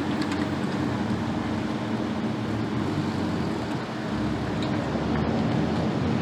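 Car driving at road speed: a steady mix of engine hum and tyre and road noise.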